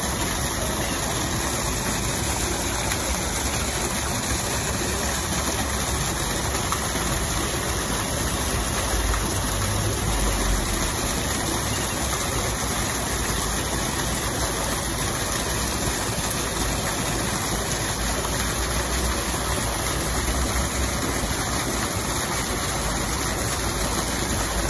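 Small cascade of water falling into a shallow pond, a steady splashing rush.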